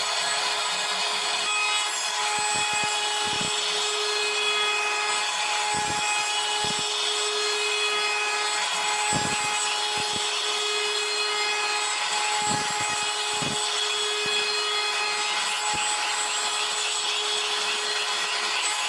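CNC router spindle carving wood: a steady whine over a continuous cutting hiss, with occasional short low thumps.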